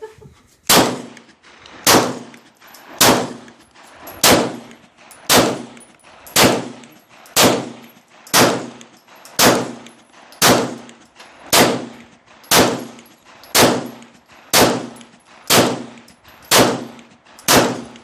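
Glock 17 9mm pistol firing reloaded 115-grain ball rounds in a steady string, about one shot a second, some seventeen shots, each followed by a short ringing.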